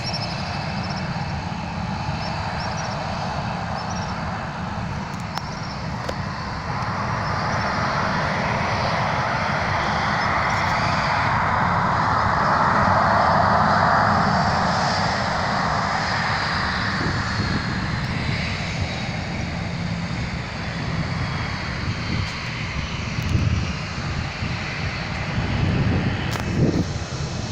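Boeing 737-700's CFM56 jet engines roaring as the airliner passes close by. The noise swells to its loudest about halfway through, then a fan whine falls in pitch as the plane moves away. A few low thumps come near the end.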